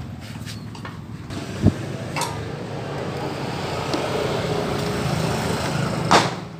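A few sharp metal clinks of a hex key against a scooter's cylinder head and retainer-plate bolt, the loudest near the end. Under them an engine runs in the background and grows louder through the middle.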